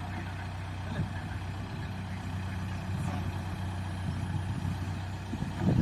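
Heavy diesel engine idling steadily, with a louder, rougher surge near the end.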